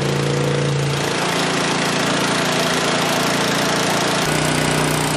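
Small Honda engine running on wood gas from a downdraft gasifier, turning an alternator. It runs steadily, and its note shifts about a second in and again near the end.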